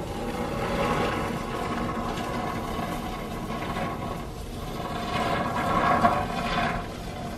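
Aerosol can of expanding polyurethane foam spraying through its straw nozzle, swelling louder about a second in and again for a longer push from about five to six and a half seconds.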